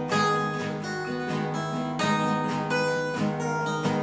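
Two acoustic guitars strummed together, playing a song's chord intro with a steady rhythm.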